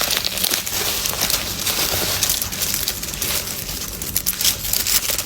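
Gift wrapping crinkling and rustling as it is handled and pulled open, a dense run of crackles that stops abruptly at the end.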